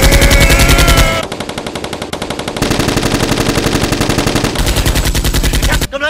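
Rapid automatic gunfire sound effects in long, continuous bursts that shift in loudness, with a brief lull about a second in. The firing cuts off suddenly near the end.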